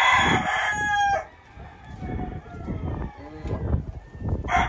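Rooster crowing: one crow ends about a second in and another starts near the end.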